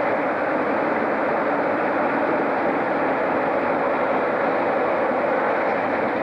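Locomotive running beside the platform as it moves slowly away, a steady, even rushing noise with no change in level.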